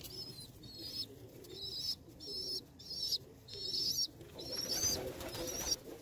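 Domestic pigeons calling: repeated short, high, wavering squeaky calls, with low cooing growing stronger from about two-thirds of the way in.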